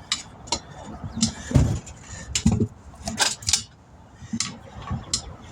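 Metal tools and parts clinking and clanking as they are handled, a string of irregular sharp clinks with a few heavier knocks.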